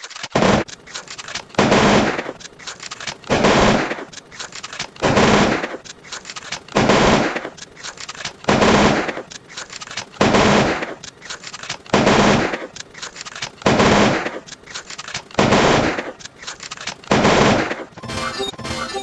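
A looped sound effect: a loud, noisy, gunfire-like blast repeating about every 1.7 seconds, some ten times. About a second before the end it gives way to a busier clip of rapid rhythmic beats.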